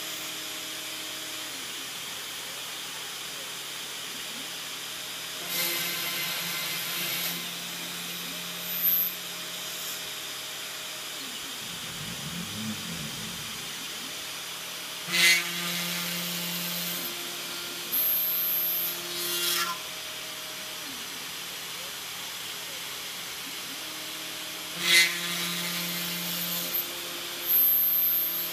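A 400 W spindle on a hobby CNC router runs with a steady whine while it drills holes in an MDF board. Every few seconds the bit plunges into the board and the spindle's sound turns into a louder burst of cutting noise, lasting a second or two and starting with a sharp hit. Near the middle a brief rising-and-falling hum is heard as the machine moves the bit to the next spot.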